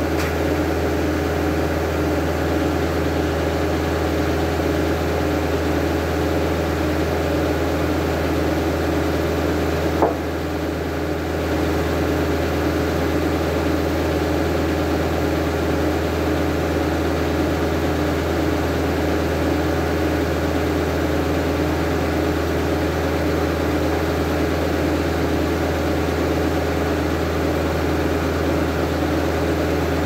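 Engine powering an antique Belsaw circle sawmill, running steadily. A single sharp click comes about ten seconds in, with a brief dip in level after it.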